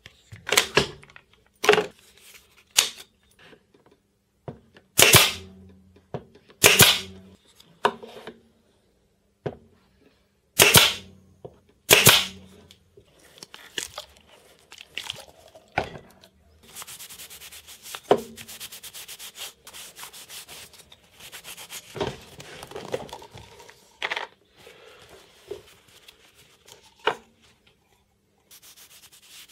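Irwin Quick-Grip bar clamps being taken off a wooden block and set down on a wooden workbench: a series of sharp knocks and clacks, loudest in the first dozen seconds. After that comes softer handling, with a stretch of steady rubbing from a cloth rag for a few seconds past the middle.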